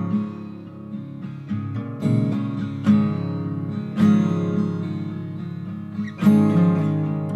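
Background music: slow plucked guitar chords, each struck note ringing and dying away.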